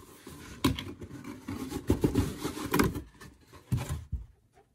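Cardboard kit-box lid being lifted and slid off the box: a rubbing, scraping sound of cardboard on cardboard with several sharp knocks, easing off about three seconds in, then two more brief knocks.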